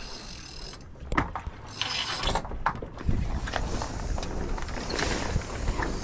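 Sailboat mainsail being lowered: stiff sailcloth rustling and crinkling as it slides down the mast. Rope runs briefly through a pulley block at the start, and fittings give a few sharp clicks.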